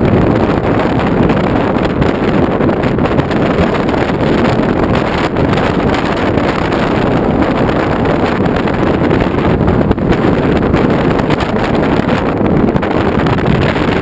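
Steady rush of wind buffeting a microphone mounted on the outside of a moving Jeep Wrangler, over the vehicle's road and engine noise.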